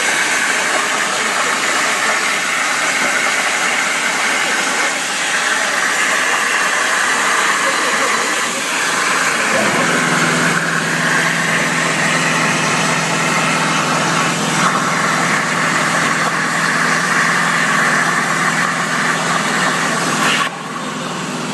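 CNC plasma cutter cutting steel: a loud, steady rushing hiss of the plasma torch, joined about halfway through by a steady low machine hum. The level drops suddenly near the end.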